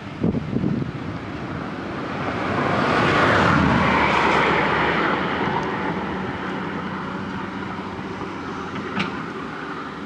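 Komatsu PC210LC hydraulic excavator working: its diesel engine runs with a steady hum as it empties its bucket and swings back. There are a few knocks in the first second, then a swell of rushing noise that peaks about three seconds in and slowly fades.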